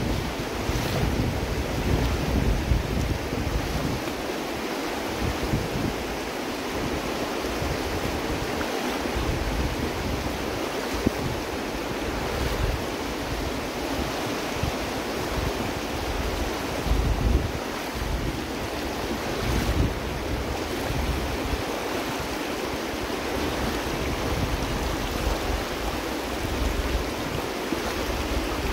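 Shallow river (the North Fork of the Virgin River) rushing steadily over stones, with wind buffeting the microphone in uneven low gusts.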